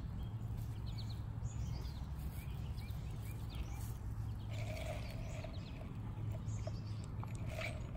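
Outdoor ambience: a steady low hum under faint, scattered bird chirps, with a short steady-pitched call about halfway through and again near the end.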